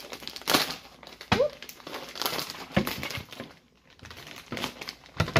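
Plastic packaging bag crinkling as it is cut open with scissors and handled, in irregular bursts with a brief pause about three and a half seconds in.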